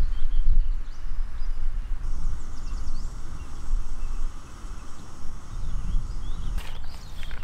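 Wind rumbling on the microphone in open woodland, with a small bird giving a few chirps and one quick trill. Near the end comes a burst of crackling, like dry leaf litter being stepped through.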